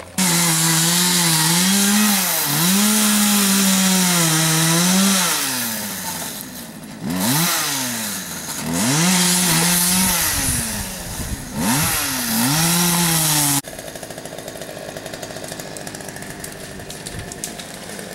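Chainsaw running at full throttle, its note sagging and climbing again and again as it cuts into a tree trunk. It cuts off suddenly about three-quarters of the way through.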